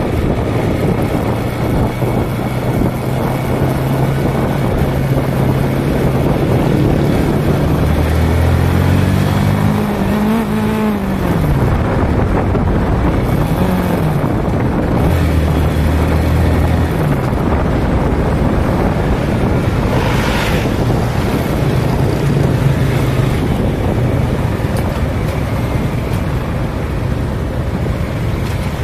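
Motorcycle engine running while riding slowly through city traffic, its pitch rising and falling a few times in the middle as the throttle is worked. It is heard over steady road and wind noise, with a brief hiss about two-thirds of the way through.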